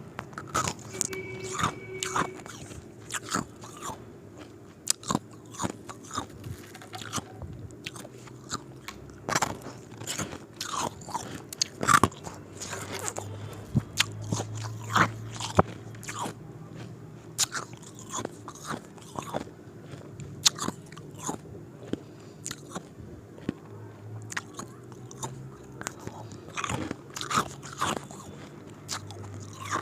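Ice cubes being bitten and crunched between the teeth and chewed, with many irregular sharp cracks and crunches.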